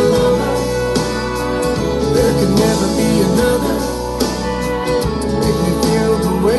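Recorded music with sung vocals and guitar, played over the DJ's sound system.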